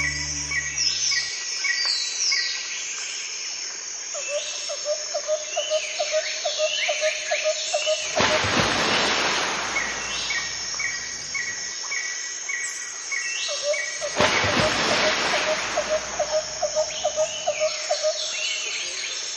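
Nature-sound background track: birds chirping and a cricket chirping in quick pulses, with two rushing swells of noise a few seconds apart.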